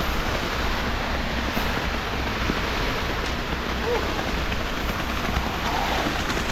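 Concrete mixer truck running, its engine a steady low pulsing drone under a continuous rushing wash of wet concrete sliding down the chute.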